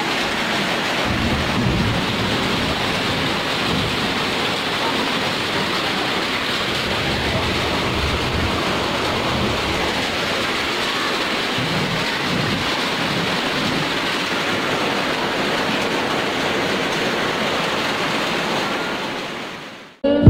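Heavy downpour of rain and hail, a steady dense hiss with low rumbles now and then, fading out near the end.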